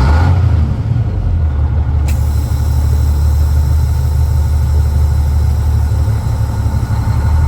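Heavy diesel engine of a 2000 International Paystar 5500i truck idling steadily. There is a short hiss at the start and a sharp click about two seconds in.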